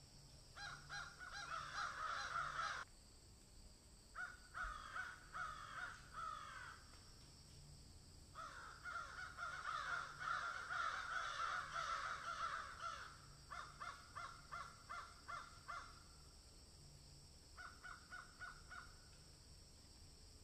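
Rapid, harsh animal calls, each bout a quick run of rasping notes. They come in five bouts of one to five seconds, with short pauses between.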